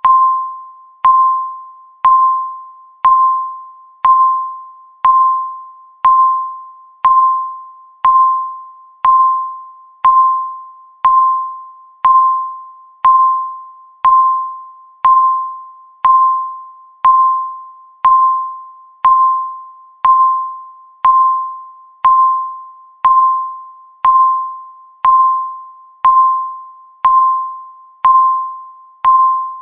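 Countdown timer's tick sound: a single clear electronic tone struck once a second, each fading quickly before the next, marking the seconds as the timer counts down.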